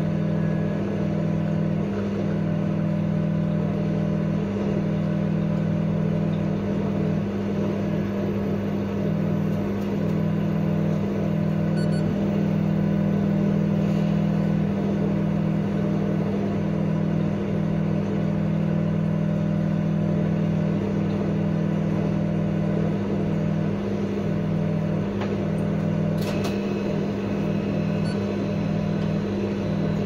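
La Marzocco espresso machine's pump running as an espresso shot is pulled, a steady low hum throughout. A few sharp clicks near the end.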